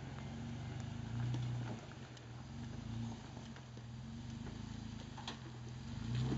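Jeep Wrangler's engine running low and slow as it crawls over boulders, with short swells of throttle about a second in, around three seconds, and near the end. A few faint clicks sound over it.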